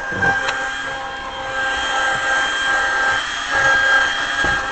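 Small handheld vacuum cleaner running with a steady whine while its nozzle is dragged over car-seat upholstery, rubbing and scraping. The user finds it doesn't work so well.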